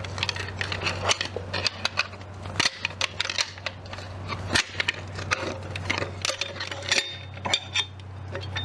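Irregular metal clinks, taps and scrapes of a tool working inside a V8 engine block, trying to free a stuck lifter among the debris of a broken connecting rod. A steady low hum runs underneath.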